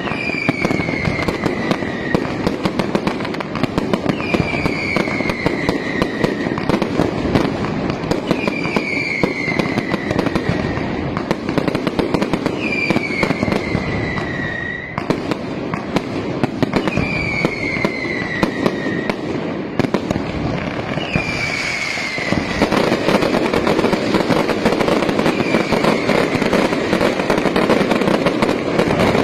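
Fireworks going off: dense, continuous crackling with a whistle that falls in pitch, repeating about every two seconds. About 22 seconds in, the crackle gets thicker and louder.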